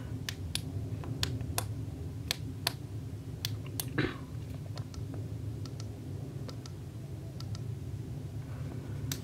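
Eastshine T25 flashlight's push-button switches clicked over and over, switching the light on and off and through its modes; the clicks come quickly for the first four seconds, then more sparsely. A steady low hum runs underneath.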